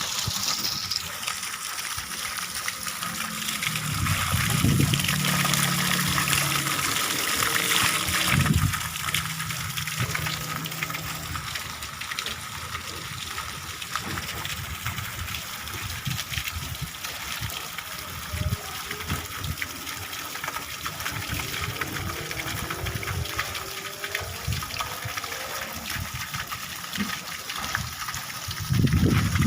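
Water gushing steadily from an outlet pipe, pumped by a newly installed submersible well pump, with an even rushing and splashing.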